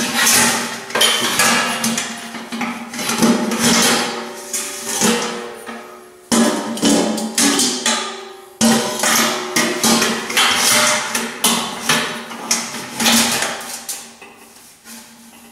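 Stainless steel bucket knocking and scraping against the steel tube legs and cross struts of a grill stand as it is worked in and out, a rapid run of metallic clanks that ring on, growing quieter near the end.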